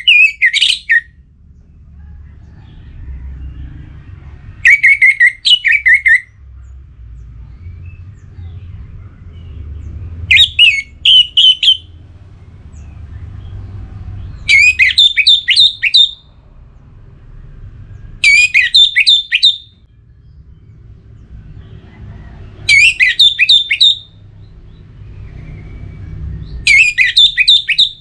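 Orange-headed thrush singing loud phrases of rapid, quick-falling notes, each about a second and a half long, repeated roughly every four seconds. A steady low rumble runs underneath.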